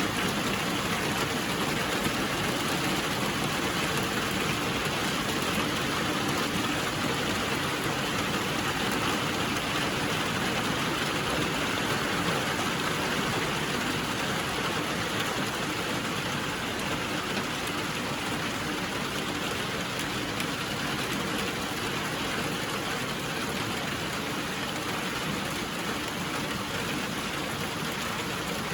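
Steady rainfall, an even hiss of rain falling without let-up.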